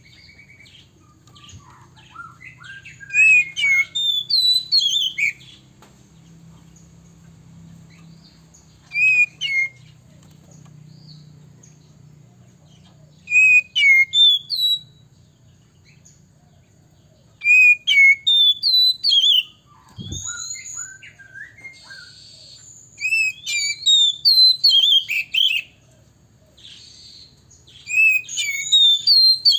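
Male Oriental magpie-robin singing in short bursts of sharp, quickly gliding whistles and chirps, about six phrases a few seconds apart.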